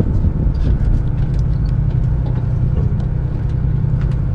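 A charter fishing boat's engine running steadily, a low, even drone with a few faint clicks over it.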